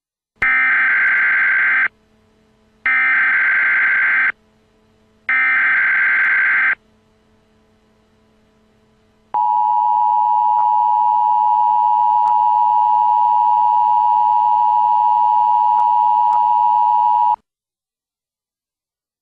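Emergency Alert System header: three identical buzzy bursts of digital data, each about a second and a half long. After a short pause comes the EAS attention signal, one steady tone that holds for about eight seconds and then cuts off. Together they announce an emergency alert, here a severe thunderstorm warning.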